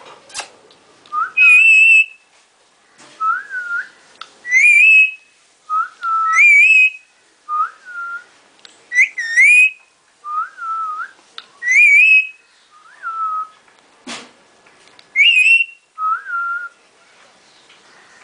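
Pet parrot whistling a repeated pattern of short notes: a lower whistle alternating with a higher, wavering one, about a dozen in all. A couple of sharp clicks come in between.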